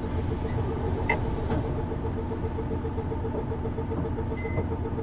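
Isuzu Erga city bus's diesel engine heard from inside the cabin: a steady low rumble with a rapid, even pulsing note, about eight pulses a second, from a bus known for a distinctive abnormal engine noise. A short high beep sounds about four and a half seconds in.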